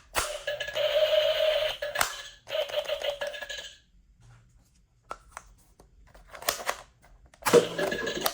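Plastic toy gun sounds: two long buzzy electronic bursts with a steady tone, a few sharp clicks in between, then another short burst near the end.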